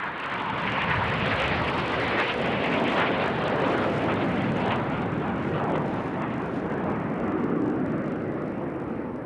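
Two BAE Hawk jets passing low as they cross each other, their engines making a loud, steady jet rush. The sound builds just before the start, is loudest over the first few seconds, then slowly eases off.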